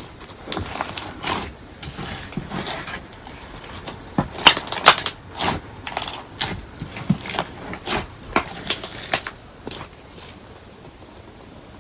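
Crunchy slime studded with hard candle-wax pieces being squeezed and pressed by hand, giving an irregular run of sharp crackles and snaps. They are loudest about four to five seconds in and thin out near the end.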